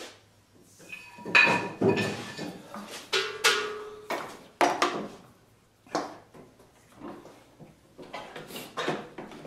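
Clattering and knocking of hard objects as a table saw's power cord is pulled across the saw and plugged in: a run of separate knocks, a couple followed by a brief metallic ring.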